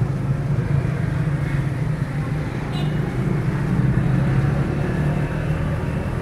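Steady low mechanical rumble with the faint sizzle of a flat-top griddle frying chicken fillets, and a brief metallic clink of steel tongs about three seconds in.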